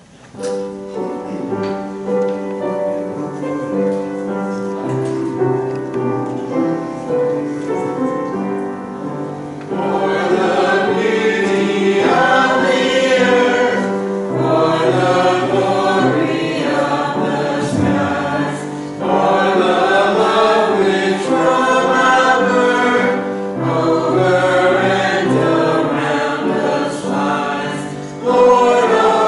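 Small church choir singing a hymn over sustained instrumental chords. The instrument plays alone for about the first ten seconds before the voices come in.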